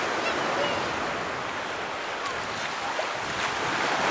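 Black Sea surf breaking and washing up the shore, a steady hiss of water that eases off and builds again near the end.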